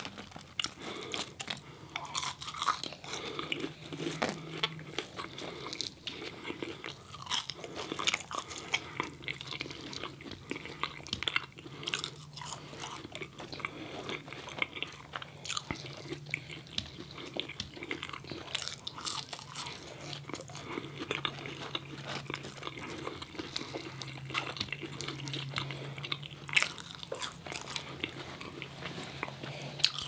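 Close-miked eating sounds: irregular crunchy bites and chewing of fried chicken fingers and crinkle-cut fries.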